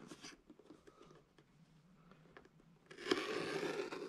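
A few faint plastic handling clicks. About three seconds in comes a scrape of hard plastic lasting a little over a second, as the tamper seal on the latch of a black plastic pistol case is broken.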